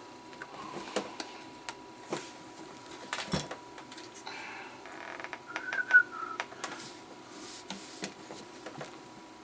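Light scattered clicks and taps from handling a circuit board and test gear on a workbench, with a short wavering higher sound about six seconds in.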